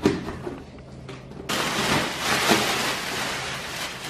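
A cardboard parcel being opened: a sharp snap at the start, then from about a second and a half in a loud, steady crinkling rustle of plastic packing being pulled out of the box.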